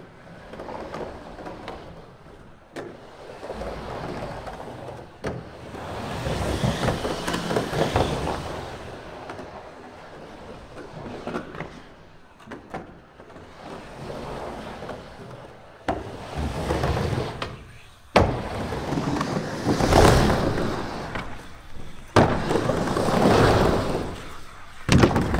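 Skateboard wheels rolling across a waterslide bowl, the rumble swelling and fading as the rider carves back and forth, with several sharp clacks from the board.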